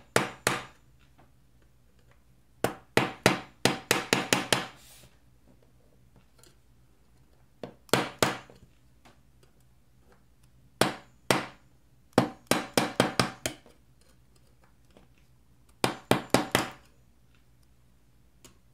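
Sharp metal-on-metal taps and clicks in six short runs of quick strikes with pauses between. The strikes come from a screwdriver and locking pliers working the keyboard rivets out of a 2015 MacBook Pro's aluminium top case.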